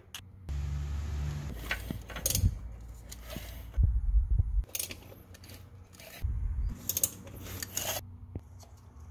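Small metal parts and hand tools clicking and clinking during distributor work, with several dull low thuds of handling.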